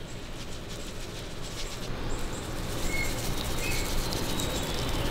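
Spice shaker rattling as dry beef rub is shaken over a raw steak, heard as faint irregular ticks over a low steady outdoor rumble. Two short high chirps come a little past the middle.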